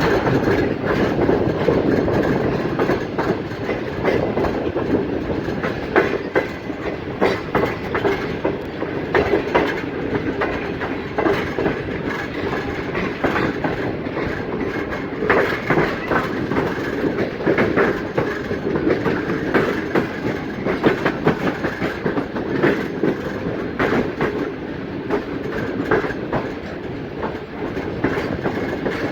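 Jinnah Express passenger train rolling slowly into a station, its coaches' wheels clacking irregularly over the rail joints over a steady rumble.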